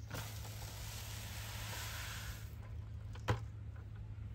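Urea fertilizer granules pouring from a plastic bucket into an agricultural drone's plastic hopper, a steady hiss lasting about two and a half seconds, followed by a single knock a little after three seconds in.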